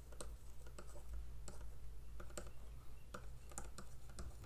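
Faint, irregular light clicks and taps of a stylus on a pen tablet during handwriting, over a low steady hum.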